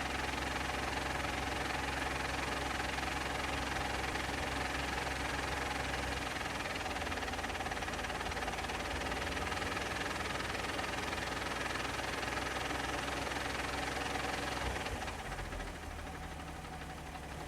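Vauxhall Insignia VXR's 2.8 V6 turbo engine idling with a clutch noise that is still there after the clutch was replaced. The low hum changes about six seconds in, and the sound quietens a little near the end.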